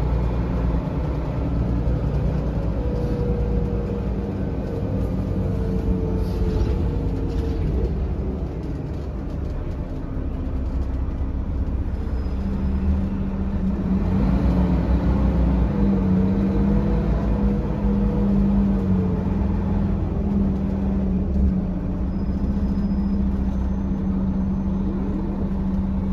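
Mercedes-Benz O500LE city bus engine and drivetrain running as the bus drives, heard from inside the cabin. About halfway through, the engine note rises and grows louder as the bus accelerates.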